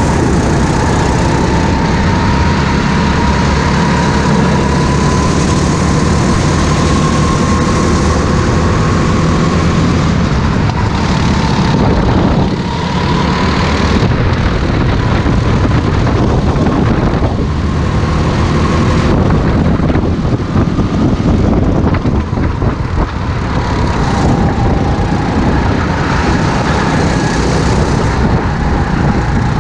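Racing go-kart engine at full throttle, heard from on board the kart, its steady high pitch wavering a little with a few brief drops in level as the driver lifts for corners.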